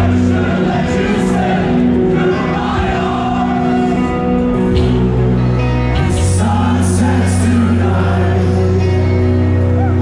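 Metalcore band playing live through a PA: loud distorted guitars and bass holding sustained chords that change about five and six seconds in, with sung vocals over them.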